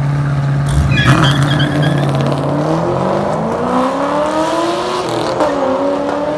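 Two Chevrolet Camaros launching in a street race. The engine note is held steady on the line, then climbs in pitch as the cars accelerate away, and dips about five seconds in at a gear change.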